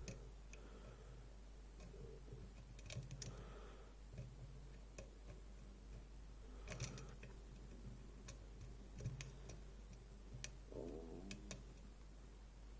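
Faint, irregular clicks and scratching of a flag pick working the pins inside a DOM iX6SR dimple lock held under tension, with a handful of sharper single clicks spread through.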